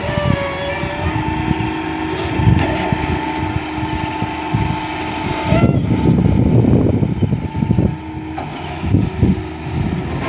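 Tata Hitachi Zaxis 210 hydraulic excavator working: the diesel engine and hydraulics run with a steady whine over a low, uneven rumble. It gets louder for a couple of seconds about six seconds in.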